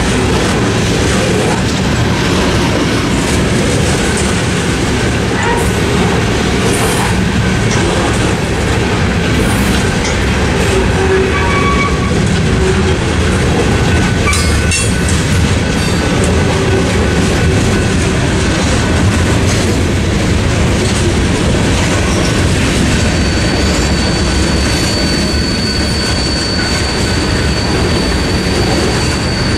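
Freight cars of a BNSF mixed freight train rolling steadily past, wheels running over the rails. A steady high-pitched wheel squeal sets in about three quarters of the way through.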